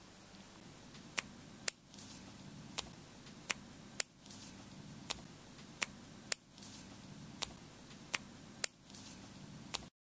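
A repeating pattern of sharp metallic clicks, each group starting with a click and a brief high ring, followed by two lighter clicks, coming round about every two and a third seconds over a faint low hum.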